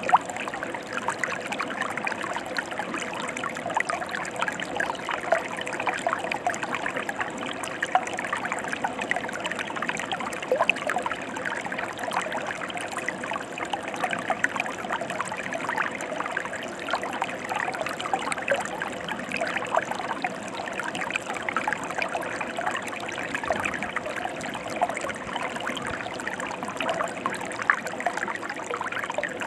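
Mountain stream flowing steadily: an even rush of water with many small splashes and trickles.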